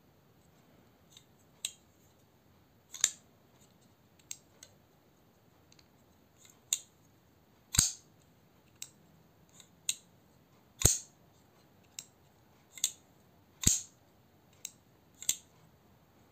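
Skif Shark II folding knife being opened and closed over and over: a string of about fifteen sharp metallic clicks as the blade swings and the lock bar engages and releases, several of them markedly louder snaps.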